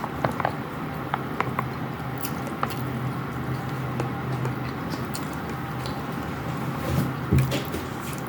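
A person eating, with chewing and short clicks of utensils on a dish, over a steady low hum.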